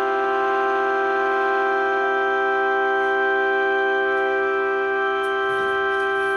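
Two outdoor warning sirens, a Whelen Vortex and a Federal Signal Thunderbolt 1003, sounding together at a steady pitch, their held tones blending into an organ-like chord. A few faint clicks near the end.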